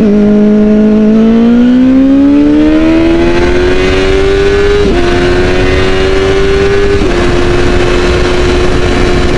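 Kawasaki ZX-10 1000 cc inline-four engine pulling hard through a gear, its note climbing steadily. It drops sharply at an upshift about five seconds in, shifts again at about seven seconds, then settles into a steady high-revving drone.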